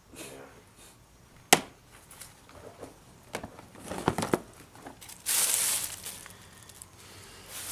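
Plastic storage bins being handled and their contents shifted. A sharp plastic click comes about a second and a half in, then a cluster of knocks and rattles around four seconds, and a second-long rustling scrape just past five seconds.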